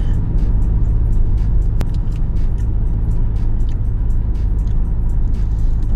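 Steady low rumble of a car's engine and road noise heard inside the cabin, under background music with a steady beat.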